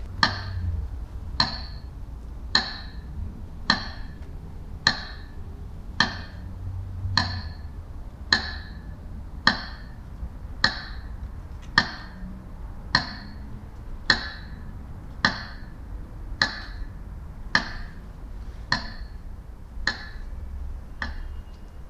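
Metronome ticking slowly and evenly, about one click every second and a bit, marking a minute of silence.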